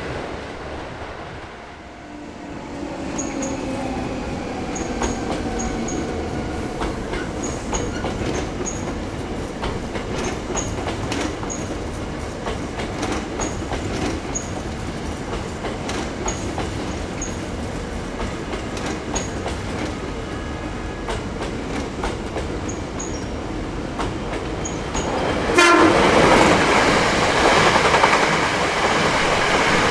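Hankyu Kyoto Line electric train running past, its wheels clattering in a steady string of clicks over the rail joints. The sound jumps sharply louder about 26 seconds in.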